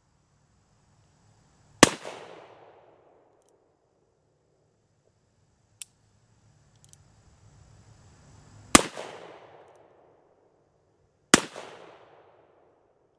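Three shots from a Pietta 1863 Remington pocket revolver, a .31 cap-and-ball black powder revolver fitted with Treso nipples. The first comes about two seconds in, the last two come close together near the end, and each rings off for about a second. There is a single sharp click between the first and second shots.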